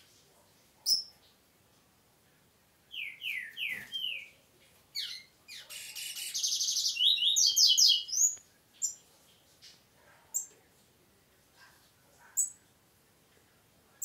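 Double-collared seedeater (coleiro) singing. A few single high chirps lead into a run of quick slurred notes about 3 s in. These build into a loud, fast, buzzy trill that ends about 8 s in, followed by single sharp chirps every couple of seconds.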